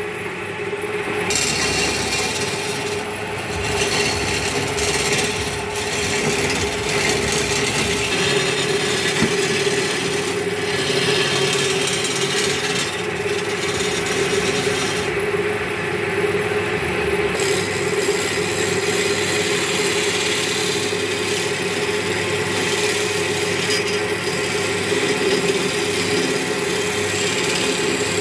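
Wood lathe running with a steady hum as a hand-held turning tool cuts a long spinning wooden blank, giving a continuous scraping hiss of wood being shaved. The cutting noise eases off briefly several times as the tool lifts from the wood.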